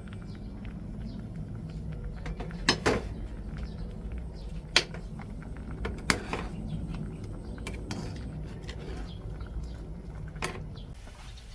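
Dishes and utensils clinking in a kitchen: a handful of sharp clinks spread through, the loudest about five seconds in, over a steady low hum that drops away near the end.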